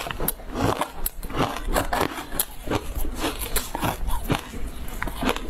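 Close-up crunching and chewing as a green powder-coated block of food is bitten and chewed: a steady run of sharp, irregular crackles, several a second.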